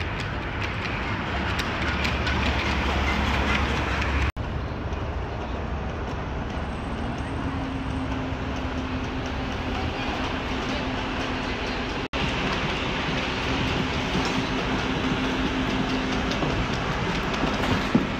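Steady rumble of street traffic and a large bus idling at a bus stop, with a low engine hum underneath. The sound drops out for an instant twice where clips are joined.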